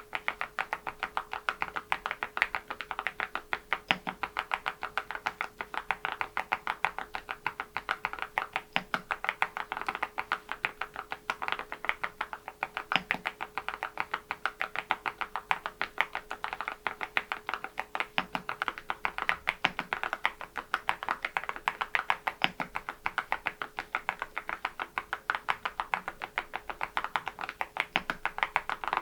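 Continuous fast typing on a mechanical keyboard with ceramic keycaps: a dense, steady stream of bright clicky key strikes, many per second.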